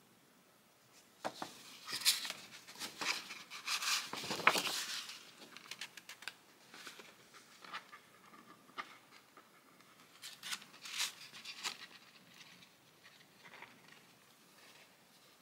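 Paper rustling and crinkling as a soft-cover journal's pages and cover are handled during sewing, in two busy spells, about one to five seconds in and again around eleven seconds, with lighter rustles between.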